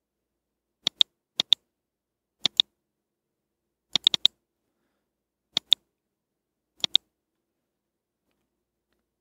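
Computer mouse button clicking, each click a quick press-and-release pair, six times over several seconds, with a quicker double click about four seconds in.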